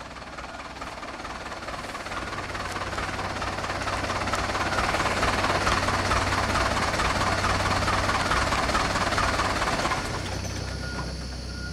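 Diesel engine of a light truck loaded with oil-palm fruit bunches, working hard to pull through mud. It grows louder over the first few seconds, runs strong with a fast, even rattle in its note, and eases off at about ten seconds.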